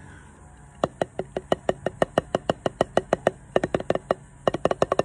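Wooden drumsticks striking an Evans RealFeel rubber practice pad in a quick, even stream of strokes, starting about a second in, with a brief pause about four seconds in.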